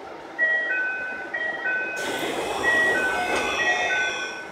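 TX-2000 series commuter train door chime: a two-note high-low tone repeated over and over. About two seconds in, a rush of noise comes in as the doors slide open.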